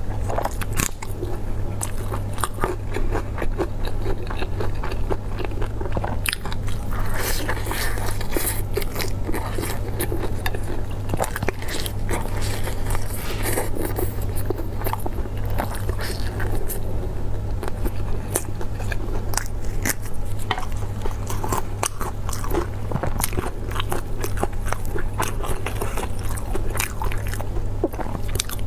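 Close-miked biting and chewing of crisp-crusted Xinjiang baked buns (kao baozi), with many small crunches and crackles of the crust, over a steady low hum.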